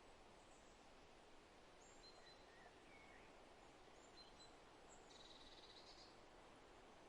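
Faint wind in forest trees, a soft steady hiss, with scattered distant bird calls: brief high chirps throughout and a short rapid trill about five seconds in.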